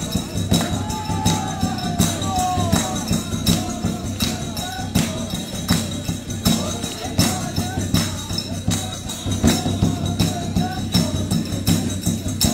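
Music with a jingling, tambourine-like percussion beat keeping an even pulse, about one stroke every three-quarters of a second, over a steady low drone and a faint voice.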